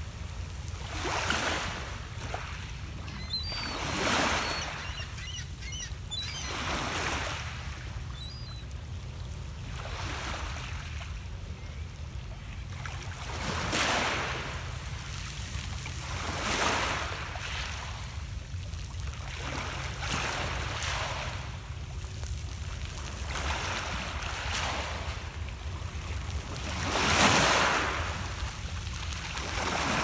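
Small Lake Ontario waves breaking and washing over a pebble beach, one rushing swell about every three seconds, over a steady low rumble. The loudest wave comes near the end.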